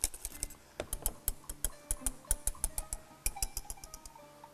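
Wire whisk clicking against the sides of a small stainless steel saucepan as a cream is whisked: a quick, uneven run of metallic ticks, about five a second, growing fainter near the end.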